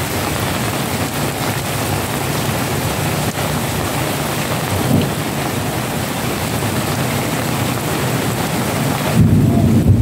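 Heavy rain pouring down in a steady hiss. Near the end the hiss gives way to a louder, deeper rumble.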